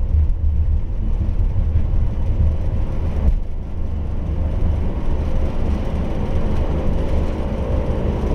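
Airbus A330 takeoff roll heard inside the cockpit: a loud, steady low rumble of the wheels on the runway and the engines at takeoff power. A single jolt comes a little over three seconds in, and steady humming tones then sound over the rumble.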